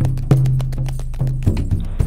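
Background music: a rhythmic percussion beat of about three or four strikes a second over a low sustained drone.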